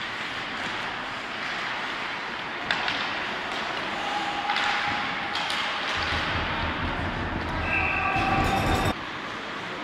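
Ice hockey game sound in an indoor rink: skates and sticks on the ice with a sharp knock about three seconds in. Near the end a low rumble with a few steady tones comes in and stops suddenly.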